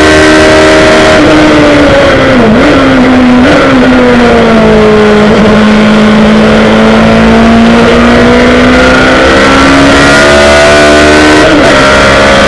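ADR3 sports-racing car's engine heard from onboard at speed: it comes off the throttle about a second in with two quick blips on downshifts into a corner, runs low through the bend, then climbs steadily as it accelerates out, with another shift near the end. A constant rush of wind and road noise runs under it.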